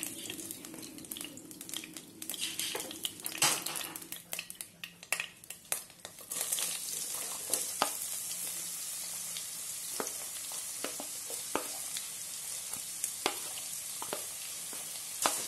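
Hot oil spattering with a wooden spoon clattering in a nonstick wok as fried chicken pieces are lifted out. About six seconds in, sliced red onions drop into the oil and a steady sizzle starts, with sharp taps as the wooden spoon scrapes the last onion from a plastic bowl.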